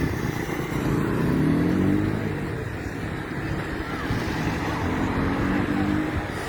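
A motor vehicle's engine, rising in pitch twice as it speeds up, over a steady low rumble.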